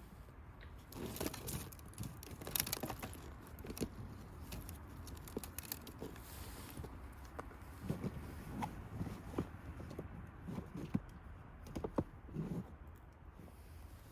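Irregular rustling with scattered light knocks and clicks, busiest about a second in and again from about eight to twelve seconds in.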